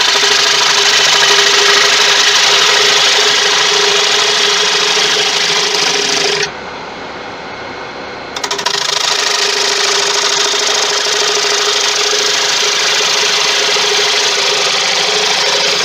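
Bowl gouge cutting a large spinning tiger wood bowl blank on a Laguna wood lathe: a steady shearing hiss of the cut over a constant hum from the lathe. The cut lifts off for about two seconds past the middle, leaving only the quieter spinning hum, then bites again.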